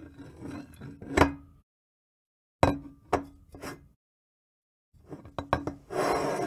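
Glass carafe set down on a wooden table, over and over: lighter handling knocks, then a sharp clunk with a short glassy ring about a second in and again near three seconds in, followed by smaller knocks. Near the end, a cluster of clicks gives way to a short rasping noise of under a second.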